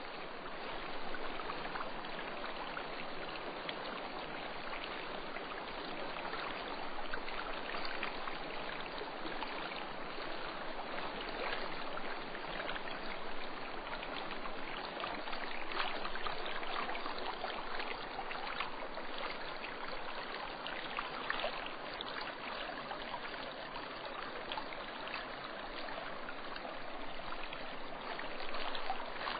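Steady rushing of a fast-flowing stream, an even wash of water noise with no let-up.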